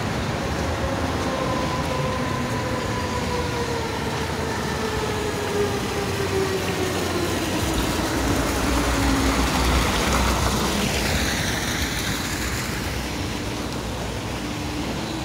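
Street traffic with a tram going by: its motor whine falls steadily in pitch over several seconds, with a louder swell of rumble and hiss around the tenth second.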